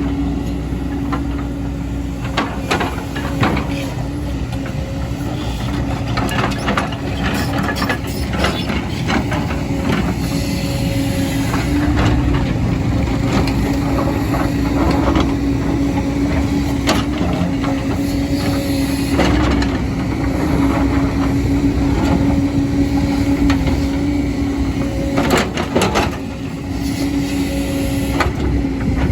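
Diesel engine of a heavy earthmoving machine running steadily under work, with scattered metallic clanks and knocks from the working machine, a cluster of them near the end.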